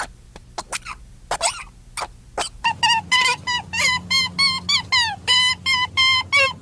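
Animal calls: a few short breathy bursts, then from about two and a half seconds in a rapid run of short, high-pitched calls, four or five a second.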